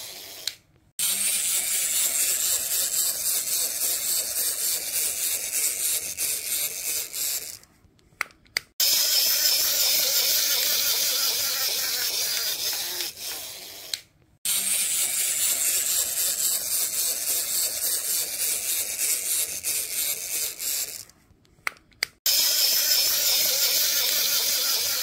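Walking toy Hercules beetle's small motor and plastic gears running with a high whirr and fine rapid clicking. It stops for a moment four times, about every six or seven seconds, and starts again each time.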